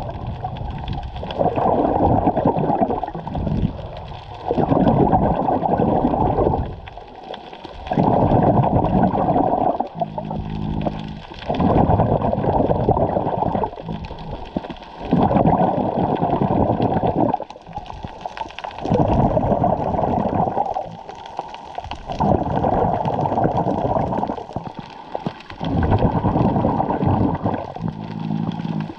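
Muffled underwater water noise picked up through a GoPro's waterproof housing, swelling and fading every few seconds. A short low hum comes in about ten seconds in and again near the end.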